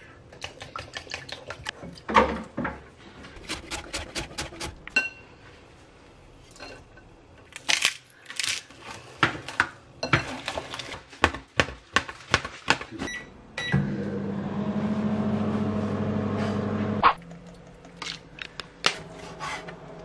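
Eggs being beaten in a ceramic bowl, with quick clinks and taps of the utensil against the bowl. Past the middle, a microwave oven runs with a steady hum for about three seconds and stops with a click. More clinks and taps follow.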